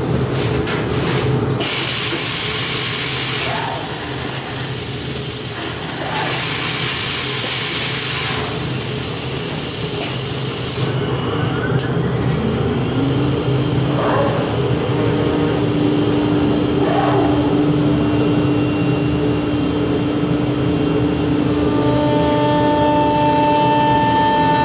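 CNC woodworking router machine running with a steady loud noise. About halfway through, its spindle spins up in a rising whine that then holds a steady pitch. Near the end, more steady whining tones join in.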